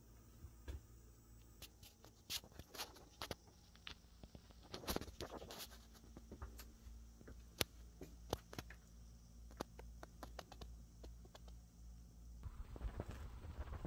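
Faint scattered clicks and scratching of a hand-held phone camera being handled while it is carried, over a low steady hum.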